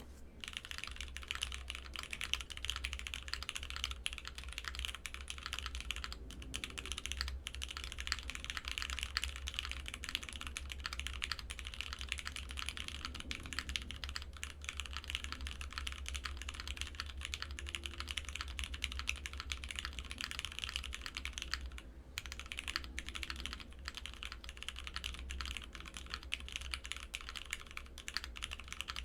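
Steady, fast typing on a custom mechanical keyboard, an Artifact 60.1 prototype with lubed and filmed Cherry MX Brown tactile switches, an FR4 plate and GMK keycaps, damped with tissue under the PCB against case ping. The typing pauses briefly a few times.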